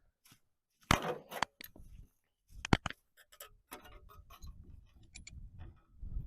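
Sharp metal knocks from the cast-iron combination vise being handled, about a second in and again near three seconds, followed by a run of quieter clicks and scraping as its saw-filing jaws are worked.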